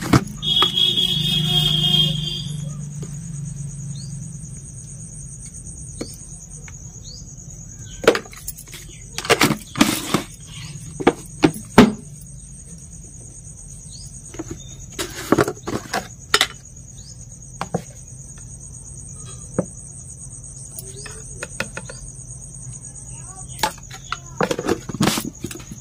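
A steady high chirring of crickets runs underneath, while plastic spice jars and their screw lids click and knock in clusters as powdered masala is tipped out into steel bowls. It opens with a brief loud voice-like sound lasting about two seconds.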